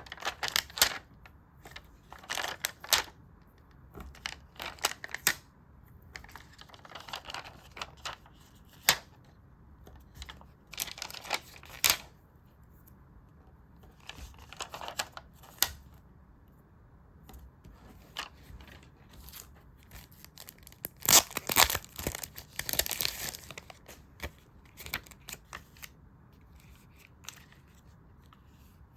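Stickers being peeled from their backing and paper being handled, heard as irregular short bursts of crackling and rustling with brief quiet gaps between. The loudest stretch comes about two-thirds of the way through.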